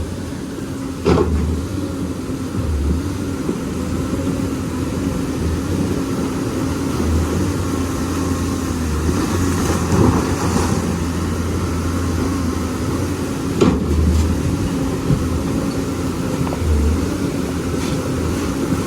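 Lonking excavator's diesel engine running steadily, with two sharp knocks, one about a second in and another about two-thirds of the way through.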